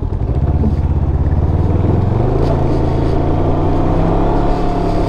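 A 2019 Can-Am Ryker 600's two-cylinder engine pulling away. It rises in pitch over the first two seconds, then holds a steady cruising note. The exhaust runs normally with a new manifold gasket in place of the one that was leaking.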